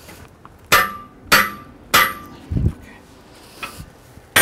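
A hammer striking metal three times, about two-thirds of a second apart, each blow ringing briefly, then a dull low thump and another ringing strike near the end.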